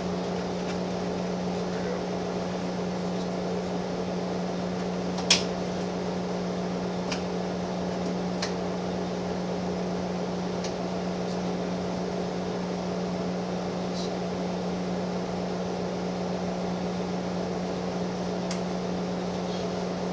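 Gillig Phantom transit bus idling, heard from the driver's seat: a steady, even hum with a constant low tone. A few light clicks sound over it, the sharpest about five seconds in.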